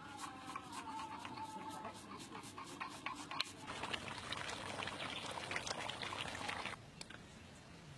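Cooking sounds from a pot of braising mutton curry: liquid being stirred, with many small clicks and scrapes. A dense crackling stretch in the second half stops abruptly about a second before the end.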